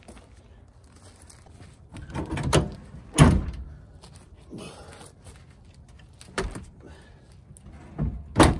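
Loading at the back of a GMC Canyon pickup with a camper shell: a loud thump about three seconds in and a few lighter knocks, then the tailgate slammed shut near the end.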